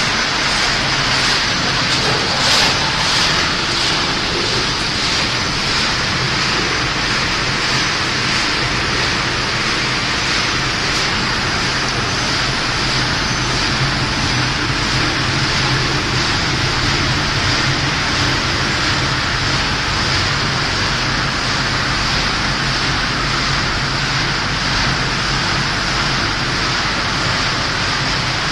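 Machinery of a corn puff snack production line running: a loud, steady hiss with a low hum underneath, unchanging throughout.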